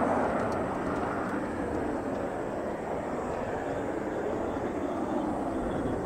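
Jet noise from an F-4EJ Kai Phantom II's twin J79 turbojet engines as the fighter flies away: a steady rumble that fades a little over the first second, then holds.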